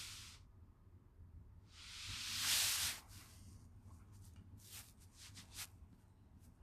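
A burst of hiss that swells over about a second and cuts off sharply, followed by a few faint sharp clicks.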